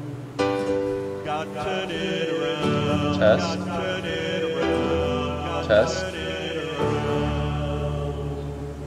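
Live church worship music: held chords that change every two seconds or so, with acoustic guitar and a voice singing a couple of brief wavering notes.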